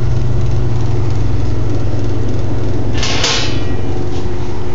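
Metal lid of a coal stove's hopper being shut over the anthracite: one short scraping rush about three seconds in, over a steady low hum.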